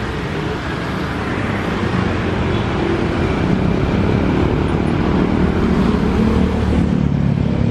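Jet engine noise of an Airbus A320 airliner on final approach: a steady rumble with a low hum that grows gradually louder as the aircraft nears.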